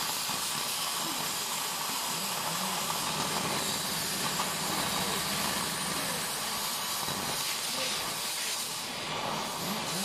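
Oxy-fuel cutting torch hissing steadily as its oxygen jet cuts through a steel angle section, blowing out molten metal and sparks. The hiss dips briefly near the end.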